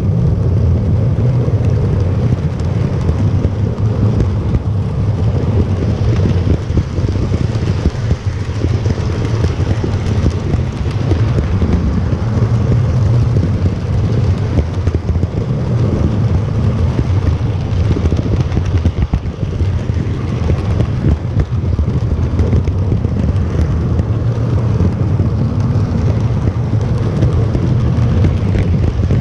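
HO-scale model train running around the track, heard from a camera riding on a wagon of the train: a loud, steady rumble and rattle of the wheels and cars on the rails.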